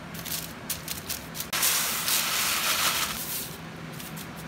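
Large prawns salt-grilling on hot salt: scattered crackling pops, then about one and a half seconds in a sudden loud hissing sizzle that fades after a couple of seconds.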